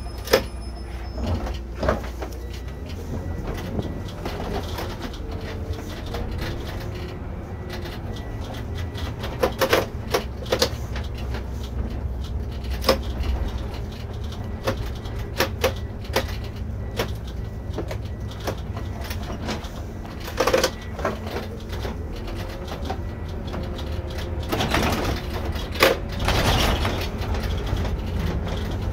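Irisbus Récréo coach under way: a steady low diesel engine drone with frequent rattles and knocks from the bodywork, and a few slow rising and falling whines from the drivetrain.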